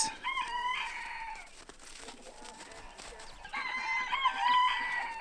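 A rooster crowing twice: a long call in the first second and a half, and another in the last second and a half.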